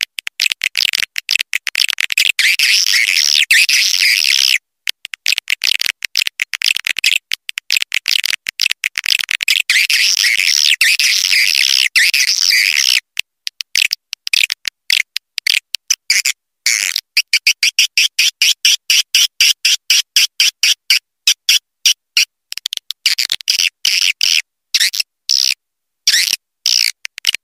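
Swiftlet twittering: dense, high chirping chopped by abrupt silent gaps, which come rapidly from about halfway on and break the calls into short bursts. It is an edited swiftlet lure call of the kind played to draw swiftlets into a nesting house.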